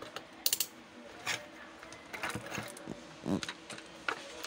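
Irregular clicks, taps and knocks of small parts, tools and test leads being handled on a workbench, over a faint steady hum.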